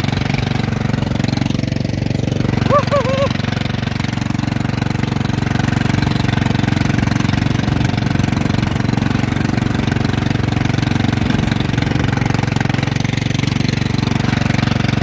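Husqvarna riding mower's engine running steadily as the mower drives.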